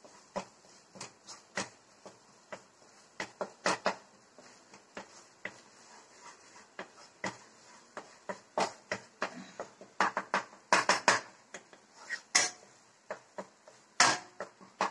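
Wooden slotted spatula knocking and scraping against a non-stick kadai while a thick masala is stirred: irregular clicks, one to three a second, coming thicker and louder in the second half.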